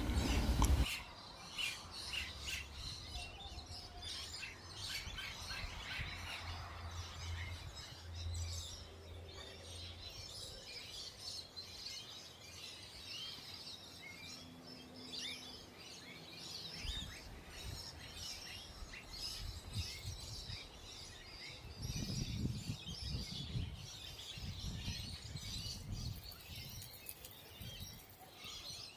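Many small birds chirping and twittering at once, in a dense, continuous chatter of short high calls. There is some low rumbling and thumping about three-quarters of the way through.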